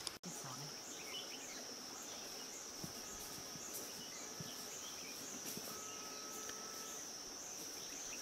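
Insects droning in a high band that pulses about twice a second, over faint outdoor background noise.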